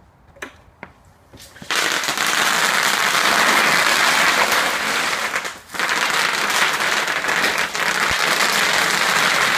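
Bubble wrap popping under the wheels of an electric wheelchair: a few single pops, then from about two seconds in a dense, continuous crackle of many pops, with a brief break a little past halfway.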